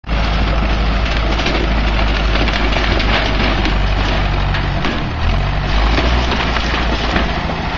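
Wooden house being demolished by a heavy machine: timber cracking and splintering over the steady running of the machine's engine.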